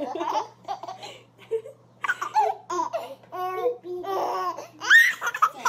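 A baby laughing hysterically in short, repeated bursts, with a high rising squeal about five seconds in.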